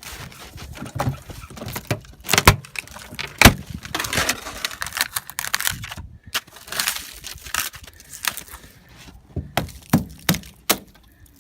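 Irregular sharp cracks and knocks, the two loudest about two and a half and three and a half seconds in, with a few more near the end.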